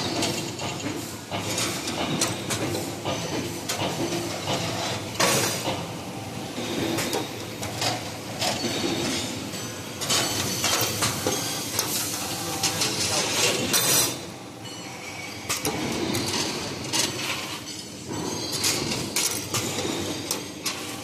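2D CNC wire bending machine at work: its bending head and wire feed running with a constant stream of irregular mechanical clicks, knocks and metallic clinks of steel wire.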